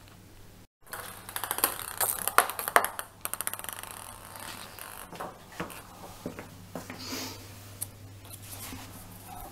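A ping pong ball bouncing on a ceramic tile floor, in quick runs of sharp clicks that speed up as each bounce dies away. The clicks are loudest in the first few seconds, then thin out to scattered single taps.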